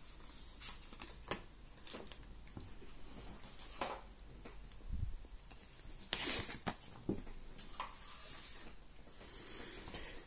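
Hands moving paper cards, a booklet and cords around on a tabletop: quiet scattered taps, clicks and rustles, with a louder rustle about six seconds in.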